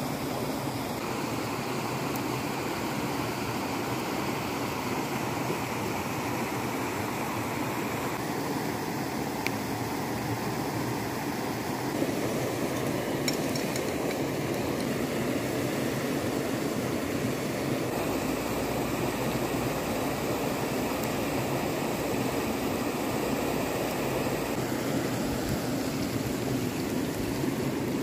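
Steady rushing of a shallow rocky creek running over stones and small rapids, with a few faint clicks.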